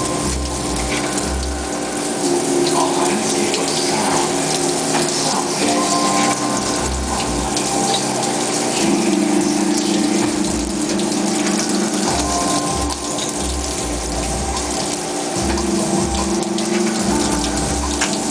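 CNC machine running with coolant flowing: a continuous hiss of liquid under several steady motor tones that step up or down in pitch every few seconds as the machine's motion changes.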